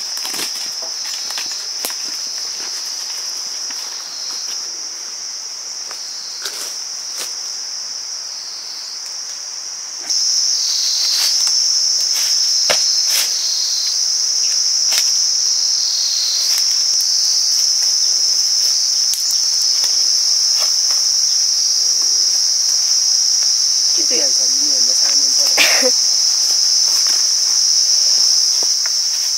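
Steady, high-pitched drone of an insect chorus, which gets louder about a third of the way in. A few light clicks and knocks are scattered over it.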